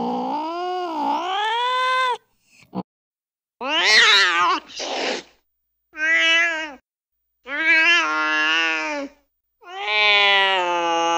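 Recorded domestic cat calls played from a cat-sound app, one after another. A long wavering yowl ends about two seconds in, then comes a string of short meows, and near the end another long, drawn-out meow begins.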